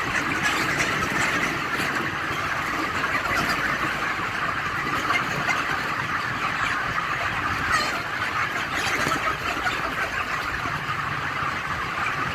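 Dense, steady din of a large flock of broiler chickens calling all at once, a continuous high chatter with no pauses.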